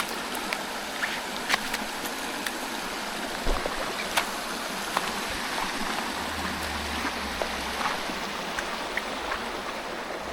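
Creek water running over rocks in a steady rush, with a few short sharp clicks scattered through it and a brief low rumble a little past the middle.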